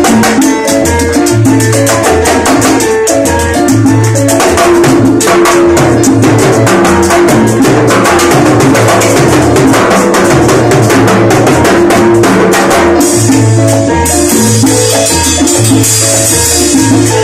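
Charanga band playing salsa live, with timbales and congas driving the rhythm; a high hissing percussion layer joins near the end.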